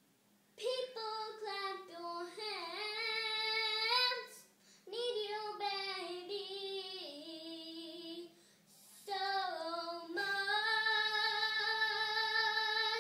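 A young girl singing alone, without accompaniment, in three phrases with short breaks between; the last phrase ends on a long held note.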